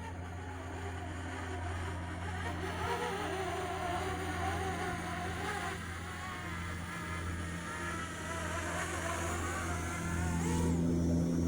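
Parrot Anafi quadcopter's propellers buzzing as it flies near, the whine wavering in pitch and climbing near the end, over a steady low hum.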